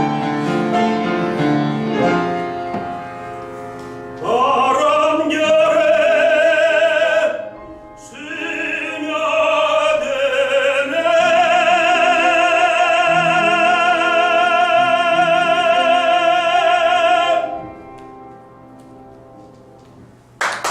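Classical tenor singing the closing phrase of a Korean art song with piano accompaniment: piano alone at first, the voice enters about four seconds in and ends on a long held high note with vibrato, then the piano fades. A sudden burst of noise comes in right at the end.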